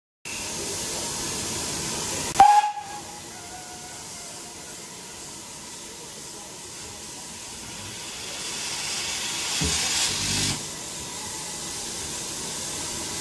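Steam locomotive letting off steam in a steady hiss, with one short whistle blast about two and a half seconds in that sags slightly in pitch as it dies away. The hiss swells louder for a couple of seconds near the end.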